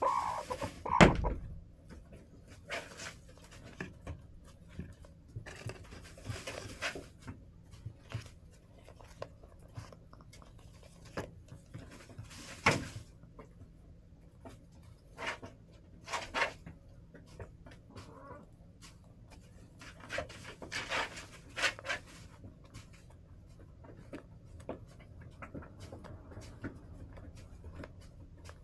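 Hens moving about inside a plastic coop: scattered light pecking and scratching taps, with occasional soft clucking. A heavier thump about a second in.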